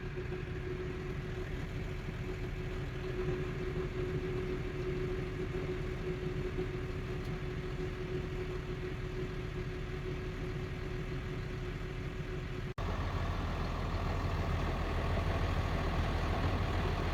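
Farm loader's engine running steadily, heard from inside its cab, with a steady whine over the rumble. About thirteen seconds in the sound cuts abruptly to a louder, deeper engine rumble without the whine.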